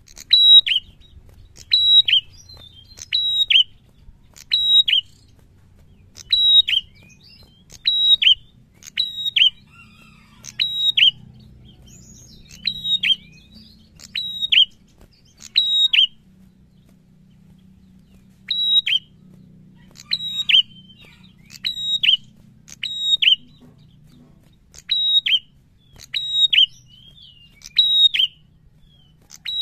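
Caged prenjak calling: loud, sharp high notes, each sliding down in pitch, repeated one to two times a second, with a pause of about two seconds a little past halfway and a shorter one near the end.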